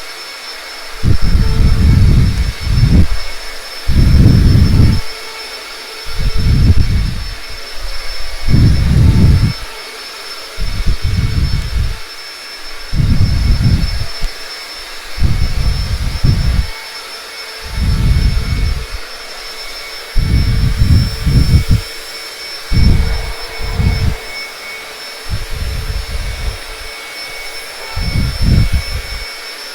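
Vacuum cleaner running with a steady high-pitched motor whine. Loud low rumbles come in about every two seconds, each lasting about a second.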